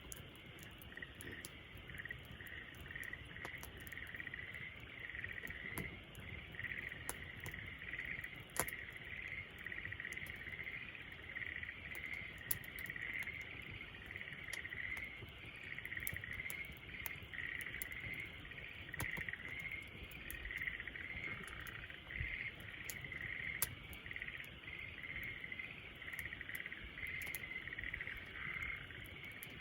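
Wood fire crackling with scattered sharp pops, the loudest about a third of the way in, over a steady chorus of insects chirping.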